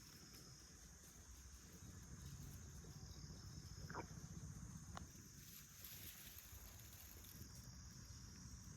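Faint, steady high-pitched insect chirring in woodland, with two soft clicks about four and five seconds in.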